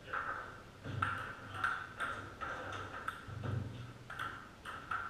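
Table tennis rally: a celluloid ball ticking off paddles and bouncing on the table, a sharp pinging click roughly two to three times a second. A couple of dull low thuds are mixed in.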